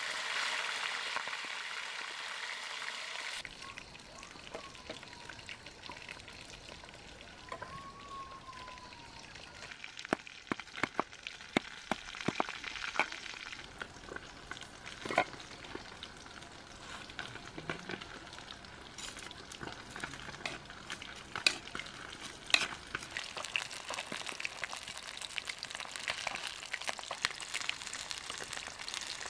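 Fish deep-frying in hot oil in a wok, a dense steady sizzle. It stops suddenly after about three seconds and gives way to a quieter stretch of scattered sharp clicks and knocks from a spoon working a salad in a clay bowl, with two faint gliding whistles early on. The sizzle of the frying fish builds again near the end.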